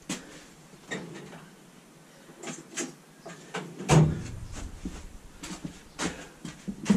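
Clicks and knocks of a steel workshop cabinet being rummaged through, a drawer or door opening and closing, with a louder knock about four seconds in.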